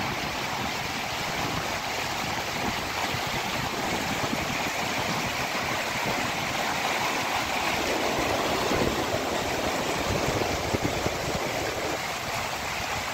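Fast mountain river running over rocks and boulders: a steady rush of white water.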